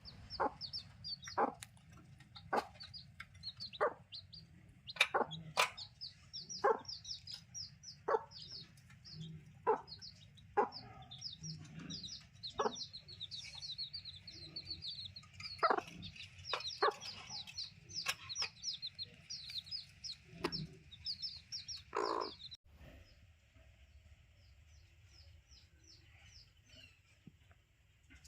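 Desi chicks peeping constantly in quick, high, falling chirps, with the mother hen clucking in short, sharp sounds about every second or so. About 22 seconds in, the sound cuts and the peeping carries on more faintly.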